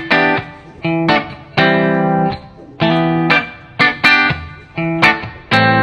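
Background music: guitar playing short rhythmic chords, some held and some cut off sharply, with a slightly distorted electric tone.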